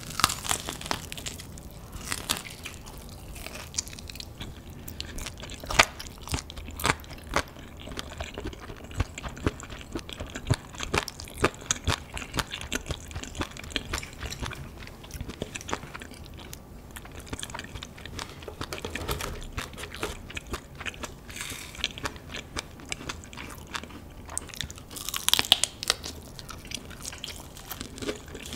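Close-miked biting and chewing of crispy honey-glazed fried chicken, with many sharp crunches and crackles from the crust.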